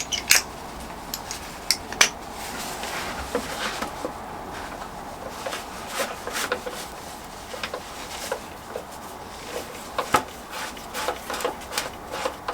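Metal hand tools clinking and being worked: an Allen key and socket extension handled against bolts and bodywork, in scattered irregular clicks and light scrapes.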